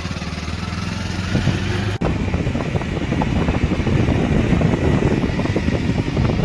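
A motor vehicle's engine running steadily, heard from on board. After a break about two seconds in, the ride turns rougher, with rattling and knocking over the engine's rumble.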